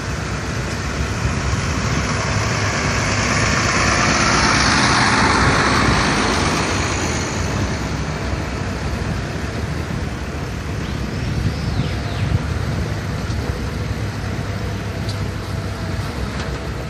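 Motor vehicle running along a dirt road: steady engine rumble with road noise, growing louder for a couple of seconds about four to six seconds in.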